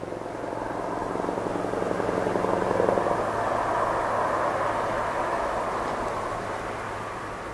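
Scania R620 V8 truck with open exhaust pipes driving past, its engine note growing to its loudest about three seconds in and then slowly fading away.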